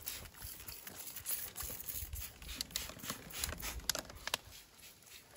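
Hand trigger sprayer spritzing liquid onto a hiking boot in a quick, irregular series of short hissing squirts, about two or three a second, over low rumbling handling noise.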